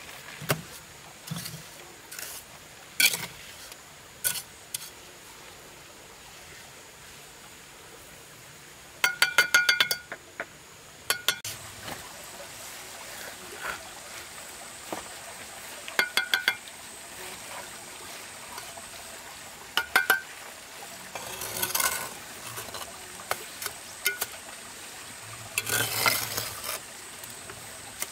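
Bricklaying: a steel trowel taps bricks down into wet mortar in quick runs of ringing clinks, with single knocks as clay bricks are set. Mortar scrapes off the trowel twice near the end.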